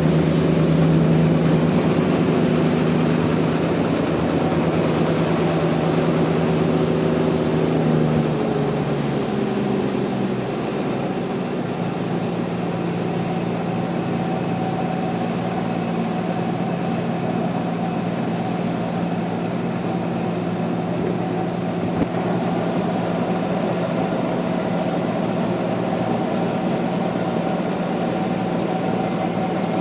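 Sawmill machinery running with a steady motor hum. The note changes about nine seconds in and then holds steady, with a single sharp click a little past twenty seconds.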